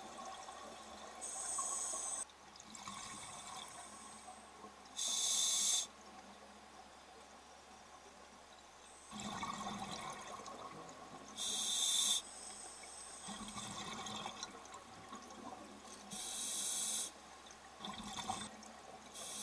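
Scuba diver breathing through an open-circuit regulator underwater: four gurgling bursts of exhaled bubbles, each about a second long and several seconds apart, with a quiet hiss between breaths.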